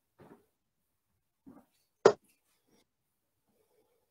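A single sharp thud about two seconds in: a steel-tip dart striking a bristle Winmau Blade dartboard. A few faint soft sounds come before it.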